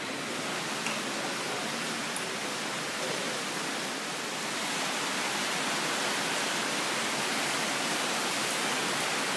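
Heavy rain pouring down, a steady even hiss that grows slightly louder about four to five seconds in.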